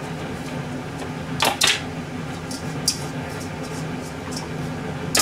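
Pots and dishes being handled at a kitchen counter: a few sharp clinks and knocks, the loudest pair about a second and a half in, over a steady low hum.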